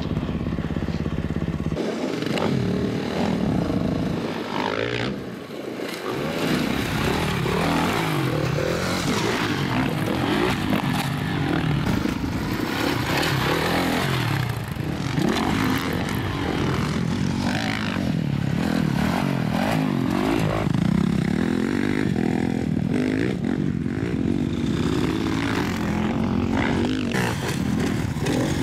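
Dirt bike engines revving hard, the pitch climbing and dropping again and again as the throttle is opened and closed.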